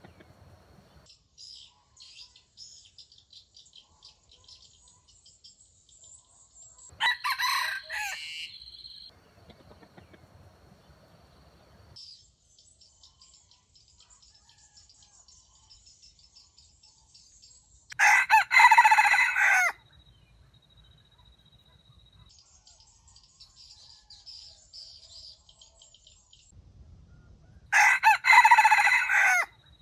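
Red junglefowl roosters crowing three times, each crow short, about a second and a half to two seconds. The first, about seven seconds in, is weaker; the two later ones are louder. A steady high buzzing runs underneath.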